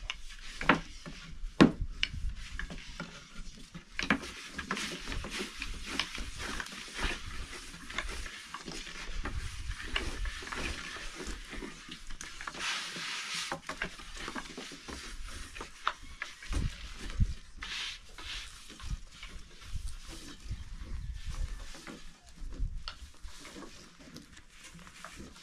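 Long thin wooden rolling pins rolling out lavash dough on floured wooden boards: a continuous soft rubbing and scraping, with frequent light clicks and knocks of wood on wood.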